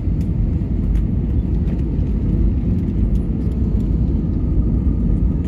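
Airbus A320 cabin noise on final approach: a steady low rumble of engines and rushing air, heard inside the cabin beside the wing.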